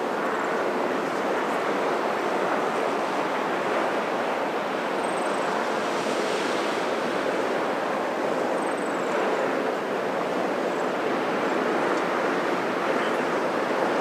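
Ocean surf washing against the rocks below a sea cliff: a steady, even rush of wave noise. Two faint short high chirps sound over it about five and eight seconds in.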